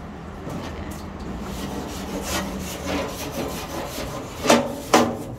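Metal scraping back and forth across the cooking grate of a Weber gas grill, in a run of rough strokes, with two louder scrapes near the end.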